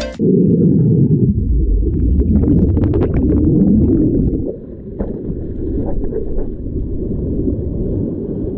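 Spa pool jets churning the water, heard through a camera held underwater: a loud, muffled rumble of bubbling with faint crackles of bursting bubbles.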